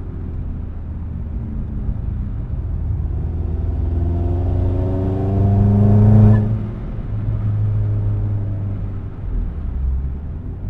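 Vauxhall Astra VXR's turbocharged 2.0-litre four-cylinder engine heard from inside the cabin, pulling hard at full throttle with its pitch rising steadily for several seconds. About six seconds in, at its loudest, the pitch drops sharply and the engine keeps pulling.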